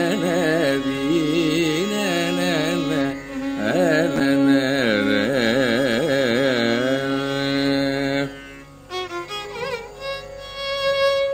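Male Carnatic singer improvising a raga alapana in Kambhoji on open syllables, his voice sliding and oscillating around each note, settling on a long held note about seven seconds in. The voice stops about eight seconds in and an accompanying violin answers more quietly.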